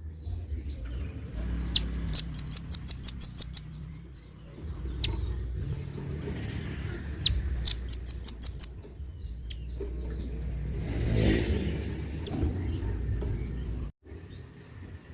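Velvet-fronted nuthatch giving two rapid runs of harsh, high 'chit' notes, each run a second or so long and a few seconds apart, over a steady low rumble.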